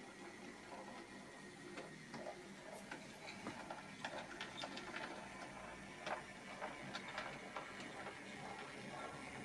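H0e model train, a Posch C50 narrow-gauge locomotive pulling small metal coaches, running along the track: a steady mechanical whir with irregular light clicks and rattles of wheels on rails, growing busier and a little louder as it approaches from about two seconds in.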